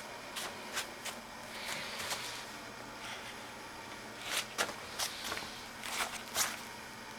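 Scattered sharp clicks and light knocks over a steady faint hiss, a few early on and a louder cluster in the second half.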